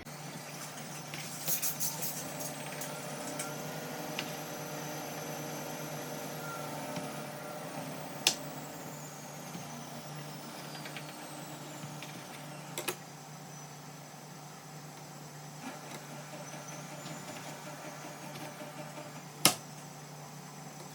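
A kitchen knife knocking sharply on a cutting board a few times, the loudest knock near the end, over a steady low hum.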